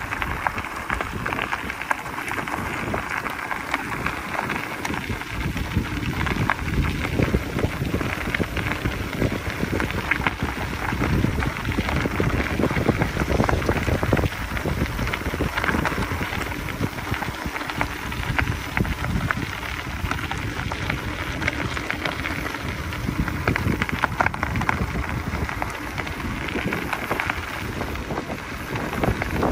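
Gravel bike tyres rolling fast downhill over a loose gravel road: a steady crackle of small stones, with wind noise on the microphone.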